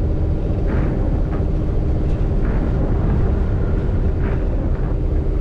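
Steady heavy rumble of wind and road noise on a camera mounted on the roof of a moving MAN truck in heavy rain, with the truck's engine drone under it. A faint swish repeats about every two seconds.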